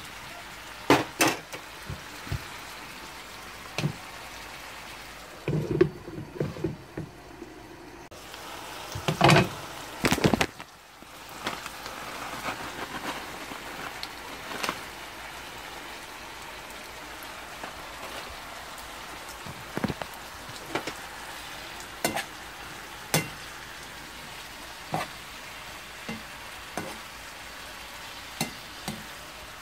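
Sauce sizzling steadily in a frying pan as it reduces around stir-fried chili peppers, with sharp clicks and knocks of the spatula against the pan scattered through. The loudest cluster of knocks comes about nine to ten seconds in.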